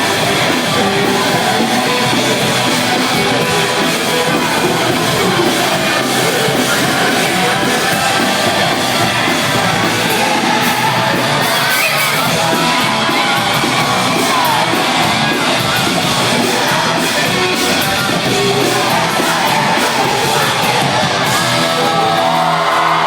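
Rock band playing live at full volume: guitars and drums with shouted, sung vocals, recorded from the audience.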